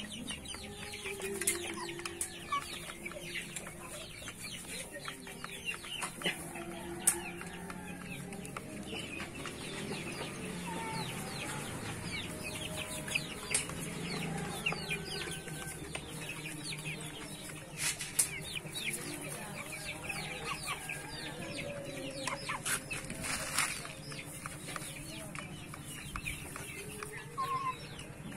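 A flock of Ayam Cemani chickens clucking, with many short high chirps throughout and a few sharp clicks.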